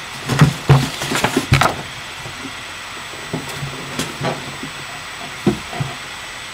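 Handling noise as a sheet of crayon-drawn paper is picked up and held close: a quick run of knocks and rustles in the first couple of seconds, then scattered light taps over a faint steady hiss.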